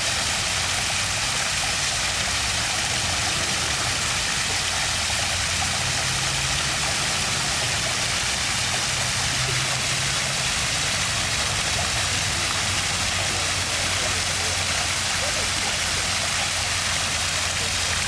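Stream water flowing, a steady rushing hiss, with a low steady hum underneath.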